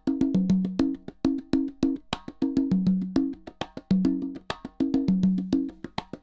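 Speaker-calibration test signal from the left and right speakers played in reversed phase: a repeating percussion loop of sharp wood-block-like clicks and short low pitched notes. The phrase recurs about every 1.2 seconds.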